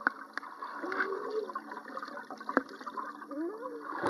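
Swimming pool heard from underwater: muffled water noise with several sharp clicks and two short wavering tones. Near the end a swimmer blows bubbles out through his nose.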